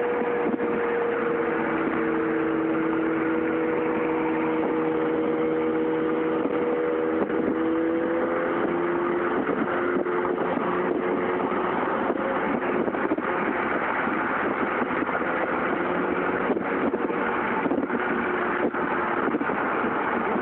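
Steady road and engine noise heard from inside the cabin of a vehicle moving at highway speed, with an engine hum that drifts slightly in pitch.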